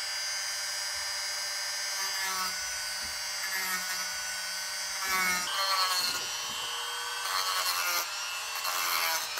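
Dremel rotary tool running with a steady high whine while its bit carves soft wood; the pitch shifts a few times as the bit bites, and the grinding turns rougher and more uneven in the last third.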